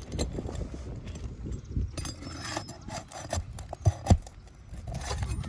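Hand tools working at asphalt roof shingles: irregular scraping and clicking as the shingles are pried at and worked loose, with two sharp knocks about four seconds in.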